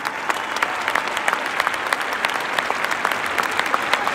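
Large arena crowd applauding, many hands clapping at once in a steady, dense patter.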